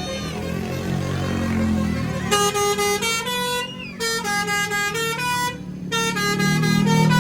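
Bus telolet 'basuri' musical air horn playing a fast tune of short, chord-like notes that starts about two seconds in and breaks off briefly twice, over the low running of a bus engine.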